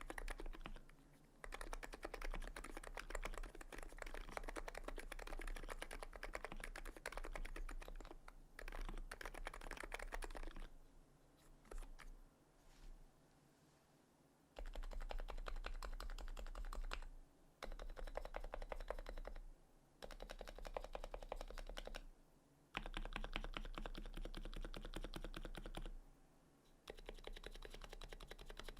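Fast typing on a TX66C R2 electro-capacitive keyboard with EC HiPro keycaps and 45 g springs. The keystrokes come in runs: a long run, then a lull of a few seconds about ten seconds in, then several shorter runs separated by brief pauses.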